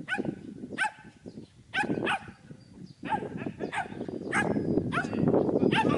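Shetland sheepdog barking repeatedly: about a dozen short barks at an uneven pace, with a brief lull just before three seconds in and the loudest barks near the end.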